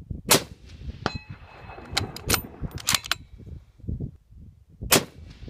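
.308 Winchester bolt-action rifle (Remington 700) fired twice, about four and a half seconds apart. Under a second after the first shot comes the ring of the half-inch AR500 steel target plate being hit at 200 yards. Several fainter sharp cracks fall between the two shots.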